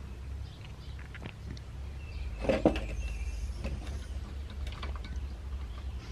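Small metal parts of a 1950s David Bradley chainsaw's recoil starter clicking and scraping as they are fitted back together by hand, with a louder clatter about two and a half seconds in.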